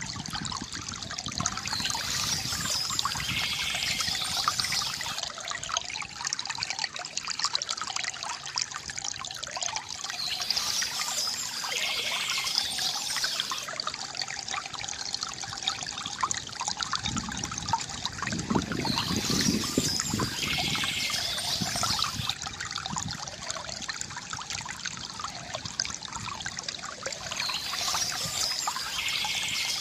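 Stream water trickling and splashing steadily, with a brighter high-pitched patch coming back about every eight to nine seconds.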